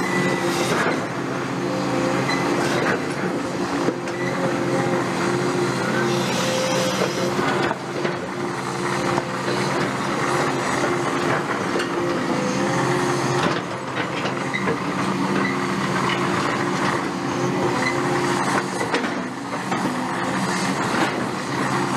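CAT 330F excavator's diesel engine running steadily under load while its hydraulic concrete pulverizer crushes foundation concrete, with short sharp cracks and knocks of breaking concrete now and then.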